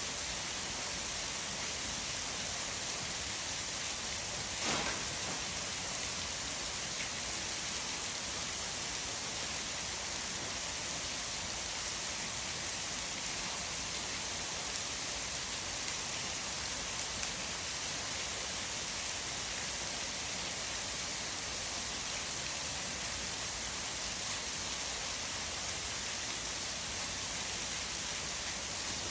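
Water falling and running at a partly frozen waterfall, a steady, even hiss. There is one brief tap about five seconds in.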